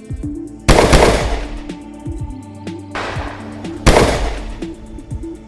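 Gunshot sound effects: two loud shots about three seconds apart, each with a long echoing tail, over background music.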